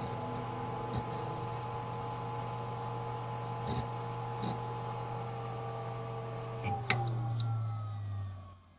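A computer running with a steady hum of fan and spinning drives, a sharp click about seven seconds in, then the tones slide down in pitch and die away as the machine spins down after being switched off.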